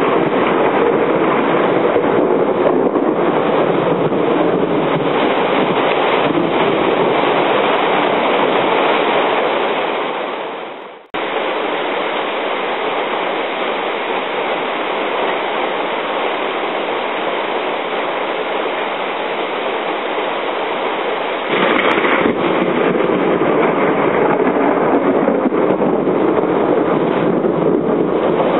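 Heavy rain pouring down in a thunderstorm downpour, a steady dense hiss of rain. It fades away and cuts out about ten seconds in, comes back a little quieter, and about three quarters of the way through turns suddenly louder again.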